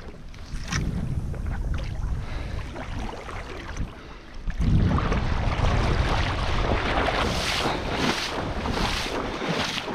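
Footsteps wading through shallow river water, splashing about twice a second in the second half, with wind buffeting the microphone.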